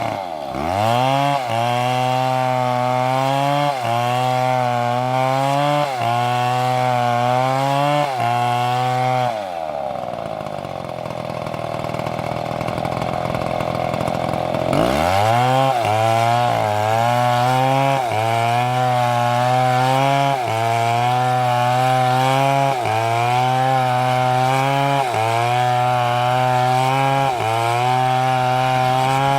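Two-stroke chainsaw cutting into a tree, its engine pitch dipping under load and recovering about once a second in a steady rhythm. About ten seconds in it eases off to a lower, quieter running for a few seconds, then revs back up and carries on cutting with the same rhythmic dips.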